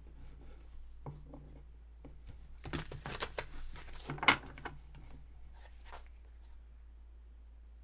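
Tarot cards being handled: a run of rustles and light card slaps, the sharpest about four seconds in, stopping about six seconds in and leaving a low steady hum.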